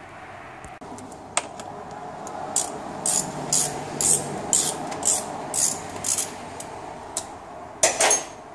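Hand ratchet clicking in short bursts, about two a second, as the T45 Torx drain plug is backed out of the automatic transmission pan, with a louder burst near the end.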